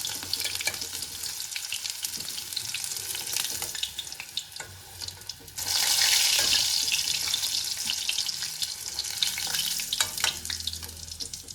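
Chicken pieces sizzling as they fry in hot olive oil, with sharp clicks of a metal scoop against the pan as the fried pieces are lifted out. About five and a half seconds in the sizzle jumps suddenly louder, then slowly eases.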